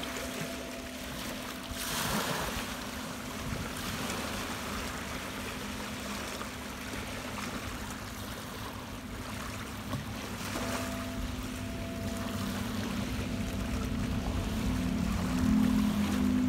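Crystal singing bowls ringing in a steady hum that grows louder about ten seconds in, over small lake waves washing onto a pebble shore, surging twice.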